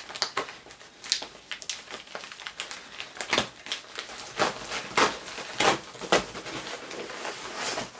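Packaging crinkling and rustling in irregular crackly bursts, as a parcel of newly bought clothes is handled and opened.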